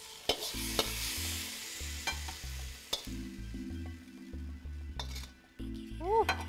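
Metal wok spatula scraping and clinking against the wok as a stir-fry is pushed out onto a plate, with a few sharp clinks and a light sizzle.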